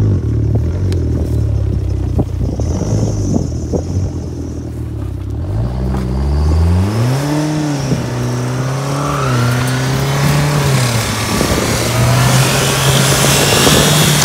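Turbocharged Chrysler PT Cruiser's four-cylinder engine running under throttle as its front wheels spin in loose dirt. About six seconds in the revs climb sharply and stay high and wavering, and a hiss of spinning tyres and flung dirt builds toward the end.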